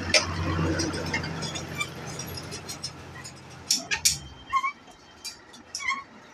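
A low steady hum that stops about four and a half seconds in, with scattered clicks and short bird chirps.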